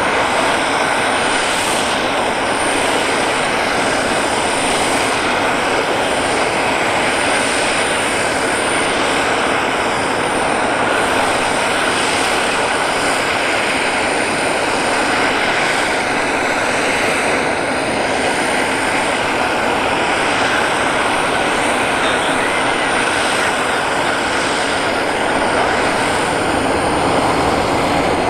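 Steady turbine noise from a Royal Air Force Airbus A400M Atlas on the ground: an even, loud rush with a thin high whine over it.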